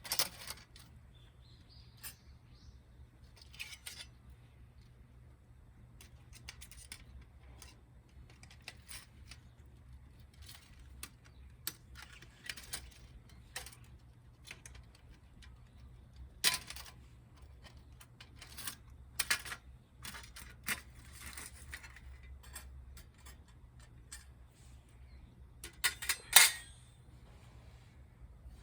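Scattered clicks, clinks and rustling as a new fire pit is handled and put together, with a louder clatter of parts near the end.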